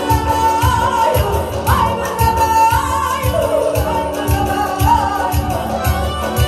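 A woman sings an Azerbaijani ashiq folk song into a microphone over amplified accompaniment: garmon and keyboard holding chords under her voice, with a steady drum beat.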